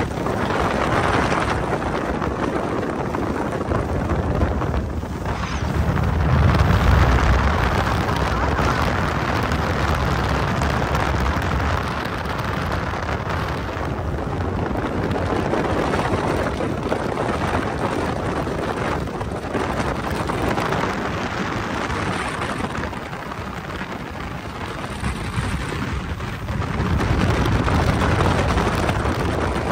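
Motorboat running at speed over open water: a steady rush of wind and water with wind buffeting the microphone, and a heavier low rumble about six seconds in.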